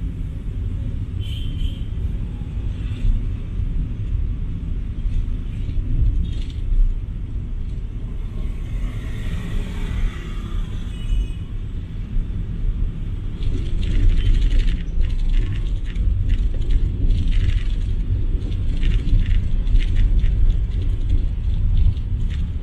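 Car cabin noise while driving in town traffic: a steady low rumble of engine and tyres, with a swell of passing traffic noise about ten seconds in and a run of light rattling clicks through the second half.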